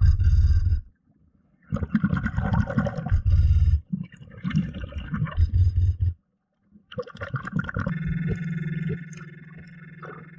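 Underwater sound of a diver's breathing: exhaled air bubbling past the microphone in loud bursts, with short pauses between breaths. About eight seconds in, a quieter steady buzzing tone sets in and carries on.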